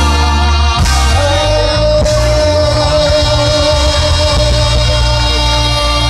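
Live reggae band with bass and drums playing while a male lead singer sings into the microphone, with a long steady note held through the middle.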